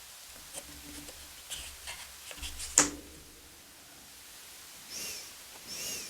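Thick tarot cards being handled and flipped: a run of light rustles and clicks, then a sharp tap just before three seconds in, and two soft swishes near the end.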